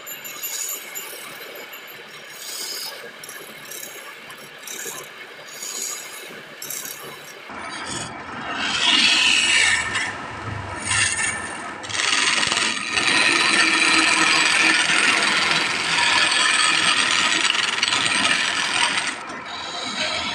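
Hand turning chisel cutting into a wooden baluster spinning on a wood lathe, a rasping scrape as shavings peel off. The cuts are light and broken at first, then become louder and steady from about seven seconds in, easing off near the end.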